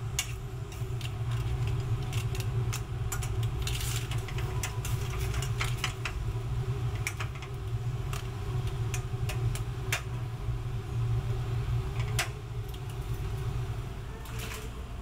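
Steady low hum of a commercial kitchen's gas burner and exhaust, with scattered sharp metal clicks of tongs knocking against a stainless steel pan as seafood risotto is turned.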